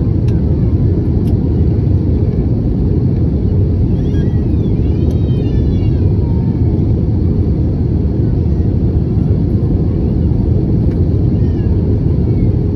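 Airbus A320 passenger cabin in flight: a steady, loud rumble of engine and airflow noise heard at a window seat, heaviest in the low end.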